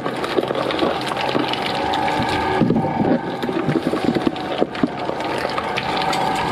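A heavy machine running with a steady whine over dense crackling and clattering. The sound drops out briefly twice, near the middle.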